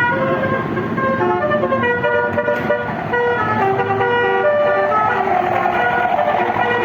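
Indonesian bus 'telolet' musical horn playing a quick tune of short held notes that step up and down in pitch, several sounding together, over the bus's running engine.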